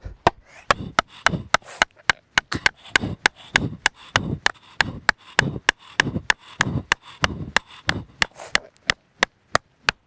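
Sharp wooden knocks, about three a second, as a short wooden stake is struck and driven into the ground. The audio is sped up, so the blows come fast and close together.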